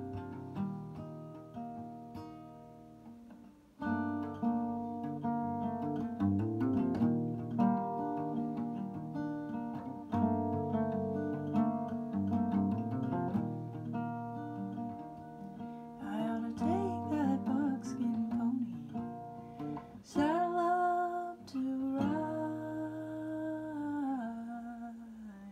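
Acoustic guitar played note by note, softer at first and fuller from about four seconds in. In the last third a wordless sung voice comes in, wavering and then holding a long note with vibrato that falls away near the end.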